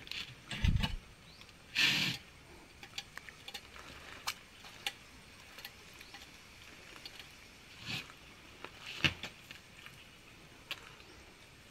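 Scattered light clicks and knocks of terracotta tiles being handled and set into place, with a dull thump under a second in and a brief scrape about two seconds in.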